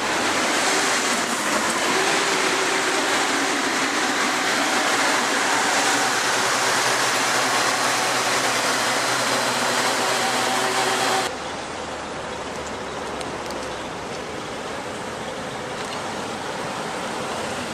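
City bus engine and road noise as the bus pulls away, loud and steady. About eleven seconds in it cuts off abruptly to quieter, steady street-traffic noise.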